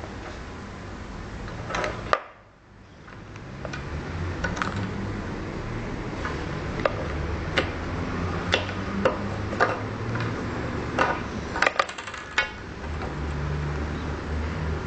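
Handling noise: a dozen or so light clicks and knocks scattered through, several close together near the end, over a low steady hum, with a sudden brief drop to near quiet about two seconds in.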